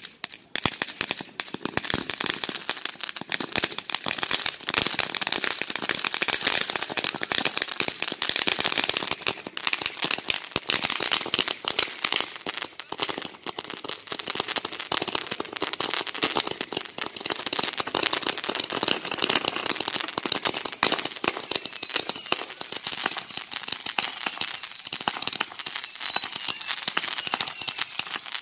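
Consumer fireworks firing without a break: dense crackling and popping from fountains and cake shots. In the last seven seconds or so, a run of short falling whistles about one a second joins in.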